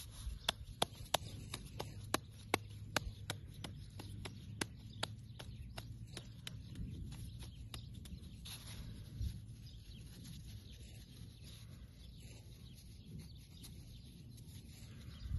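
Hands patting and shaping a round of bread dough, a quick series of sharp taps about three a second that stops about seven seconds in.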